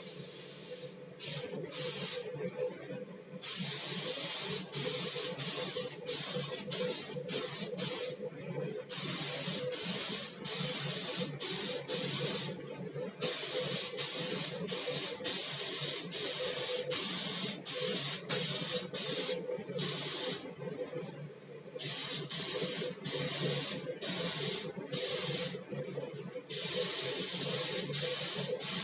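Paint spray gun with a 1.8 mm nozzle spraying filler primer: the compressed-air hiss starts and stops with each pull of the trigger in a quick run of short passes, with a few longer pauses. A steady low hum runs underneath.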